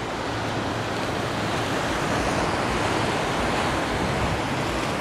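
Ocean surf washing against rocky shoreline, a steady rush that swells a little toward the middle.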